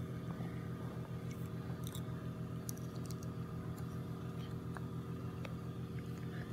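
Faint small clicks and scrapes of a screwdriver working a wrist-pin circlip into the groove of a motorcycle piston, over a steady electrical hum.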